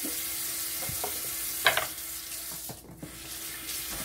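Kitchen faucet running into a stainless steel sink as hands rinse a cloth under the stream: a steady hiss of water, with a few splashes and knocks, the loudest about a second and a half in, and a brief lull near the end. A faint steady hum runs underneath.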